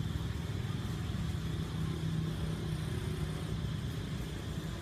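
An engine running steadily with a low drone.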